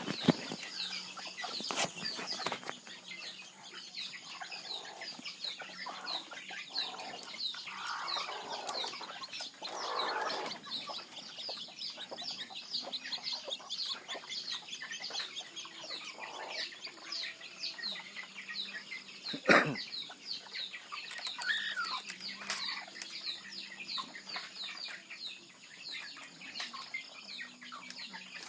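A flock of chickens clucking, with a constant stream of short, high chirps over a steady hum. There is a single sharp knock about twenty seconds in.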